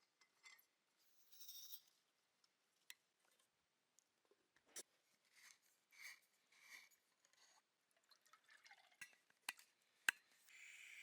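Faint, scattered clinks and scrapes of a utensil against a camp cooking pot while stirring and checking the stew, with one sharp click near the end. A steady hiss begins just before the end.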